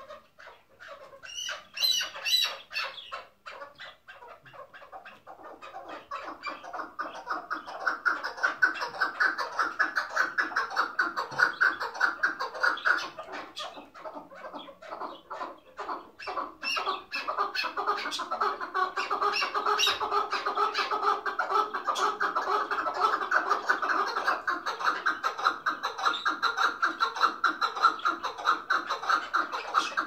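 Chukar partridge calling: a long, rapid run of repeated clucking notes, broken at first with a brief higher burst about two seconds in, then steady and unbroken from about six seconds in.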